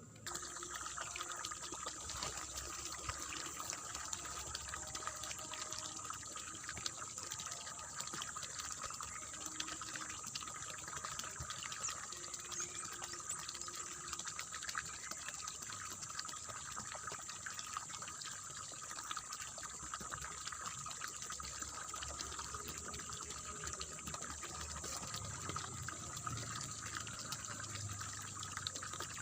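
Water splashing and gurgling steadily in a rice paddy, starting abruptly at the beginning.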